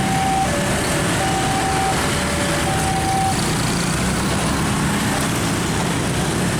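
Railway level-crossing warning alarm sounding in two alternating tones, high-low, a few times, stopping about halfway through, over a steady loud rumble.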